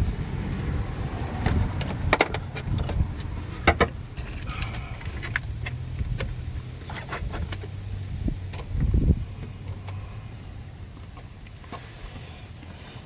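Scattered sharp clicks and knocks of tools and parts being handled during hand work on a car's cooling system, over a low rumble, with a heavier thump about nine seconds in.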